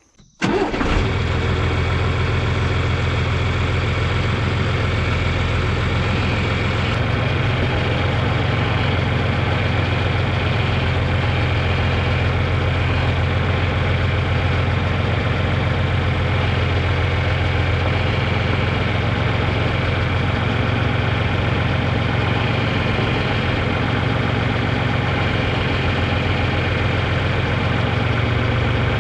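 Farm tractor engine idling steadily. It starts abruptly about half a second in.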